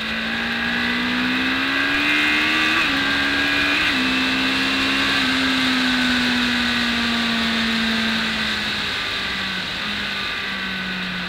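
BMW K1200S inline-four engine accelerating hard, heard from on board the bike. Its pitch climbs, drops sharply twice about three and four seconds in as it shifts up, then holds and sags as the throttle eases, dropping again near the end, over a steady rush of wind.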